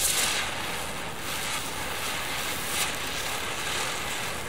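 Klásek Rotáček ground spinner fireworks spinning and spraying sparks with a steady hiss, loudest at the start, with a brief swell about three seconds in.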